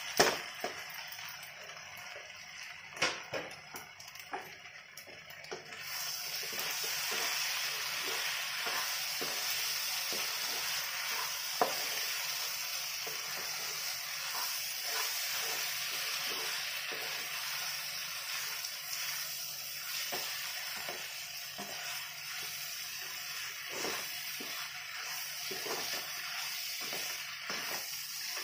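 Noodles and macaroni sizzling in a non-stick pan while being stirred and tossed with a spatula, with scraping strokes throughout. A few sharp knocks come in the first few seconds, and the sizzle turns steadier and louder about six seconds in.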